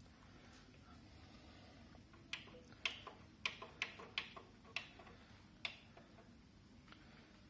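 Front-panel keys of a Kenwood KD-75F linear-tracking turntable clicking as they are pressed in turn: about nine sharp clicks at uneven spacing, starting about two seconds in and stopping before six seconds.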